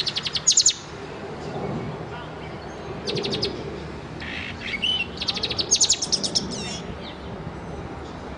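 Caged pet songbird singing in short bursts of rapid, high chirping trills. There is a brief burst at the start, another about three seconds in, and a longer, louder run of quick notes around five to seven seconds in.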